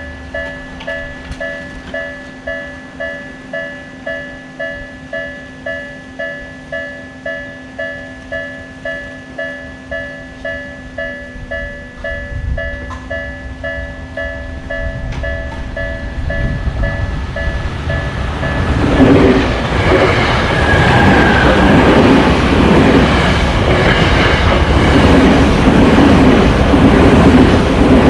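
Japanese railroad-crossing warning bell ringing its steady kan-kan, about one and a half strikes a second. From about halfway a train's rumble builds, and the train passes loudly with rhythmic wheel clatter that buries the bell.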